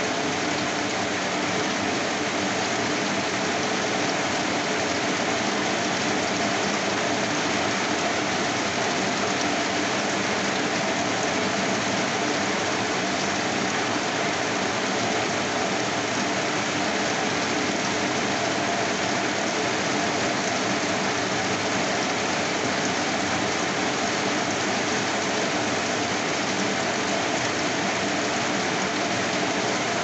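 Steady rain falling and splashing on a wet street, an even, unbroken hiss with no letup.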